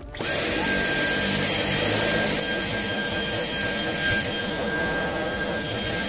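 Dyson V11 Extra cordless stick vacuum switched on and running steadily over carpet while picking up spilled ground coffee: a high, constant motor whine over a rush of airflow.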